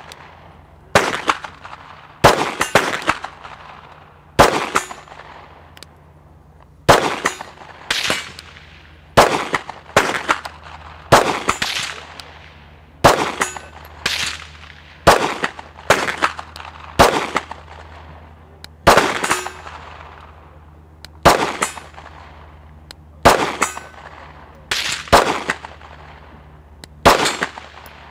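9mm Glock 17 pistol fired in a slow, steady string of about twenty shots, roughly one a second with an occasional quicker pair. Each shot trails off in a short echo.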